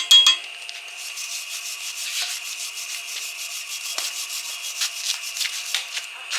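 Stick welding arc burning: a steady crackling hiss with scattered sharp pops.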